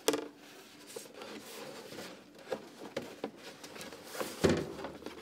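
A thick paper file slides into a cardboard archive box and the box's cardboard lid is folded shut, with paper and cardboard rubbing and rustling. There is a short sharp sound at the start and a louder dull knock about four and a half seconds in.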